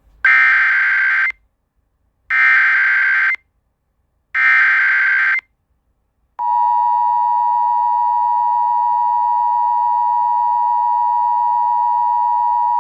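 Emergency Alert System tones announcing a special marine warning: three short bursts of SAME digital header data, each about a second long and a second apart. About six seconds in, the steady two-tone EAS attention signal starts and holds.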